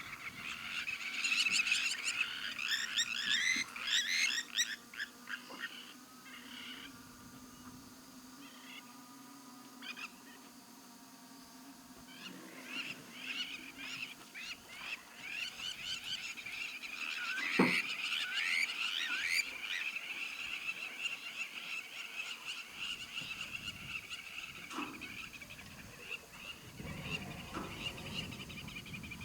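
Wetland chorus of frog and bird calls: many rapid trilling and chirping calls overlapping, busiest in the first few seconds and again a little past halfway, where one call drops steeply in pitch.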